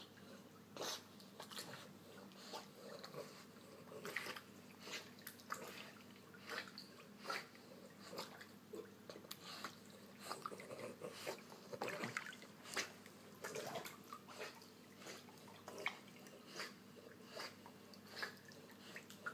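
Faint, irregular small splashes and water lapping as a dog paddles through an indoor pool, over a steady low hum.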